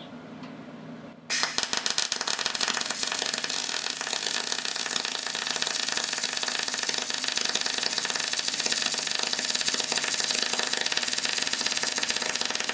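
Deca Decastar 150E MIG welder running a bead with shielding gas, turned down to low power: the arc starts about a second in and crackles steadily with a fast, even sputter.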